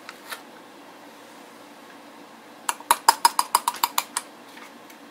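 Metal measuring spoon tapped rapidly against the rim of a glass mason jar, a quick run of about a dozen ringing clinks in under two seconds, knocking dry chocolate pudding powder off the spoon.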